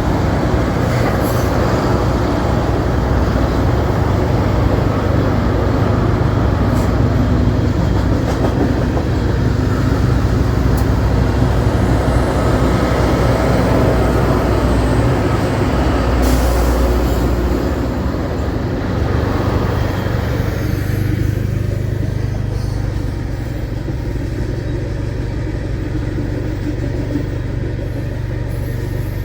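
Freight train rolling past: a steady rumble of wheels on rail with a deep low hum and occasional sharp clicks, easing off about two-thirds of the way through.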